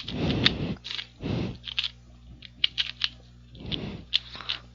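Rubik's brand 2x2x2 plastic cube being turned fast in a speed solve: quick, irregular clicking and clacking of the layers, with a few longer swishes of handling.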